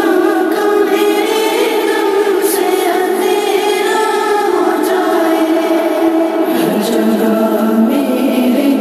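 Background music: voices singing together in a held, chant-like line, with no drums or bass heard.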